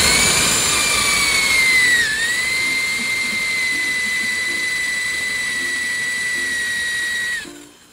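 Electric drill spinning a countersink bit into a pre-drilled hole in thin aluminum door track: a steady high motor whine that dips briefly in pitch about two seconds in as the bit bites, then winds down near the end.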